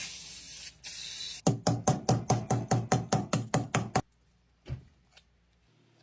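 Aerosol spray paint hissing briefly, then the spray can shaken hard, its mixing ball rattling in a quick, even run of about five strokes a second for a couple of seconds. A single knock follows near the end.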